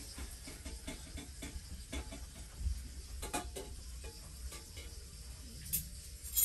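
Light clicks and clinks of metal cutlery being handled, with a few sharper clatters about halfway through and near the end, over a steady low hum.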